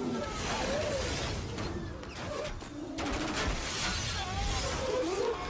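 Film sound of a slowed-down explosion: a dense rushing rumble of blast and flying debris with crashing and shattering, and slow wavering tones drifting through it. It swells a little about three seconds in.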